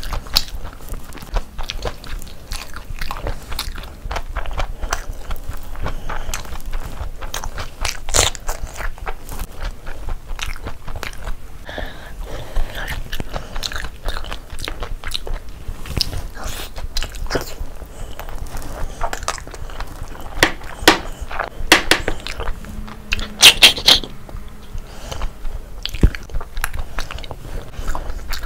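Close-miked chewing of a mouthful of biryani and meat curry, with wet mouth clicks throughout and a few louder crunchy bites about three-quarters of the way in.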